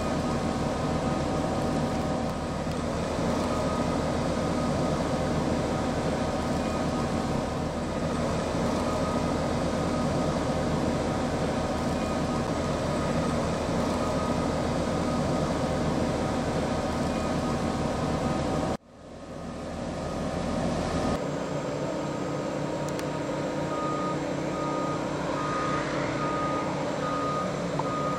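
Heavy crane diesel engines running steadily. The sound drops out suddenly about two-thirds through, then comes back. Near the end a warning beeper sounds a row of short, evenly spaced beeps.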